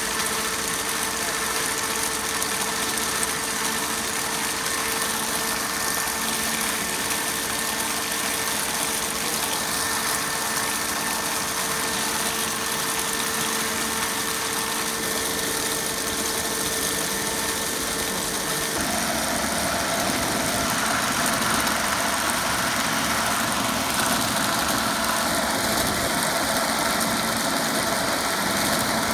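Dazzini TCI260VH stone-cutting chain saw machine running steadily, its chain arm cutting into the rock. About two-thirds of the way in the sound changes: a steady tone drops out and the noise gets a little louder.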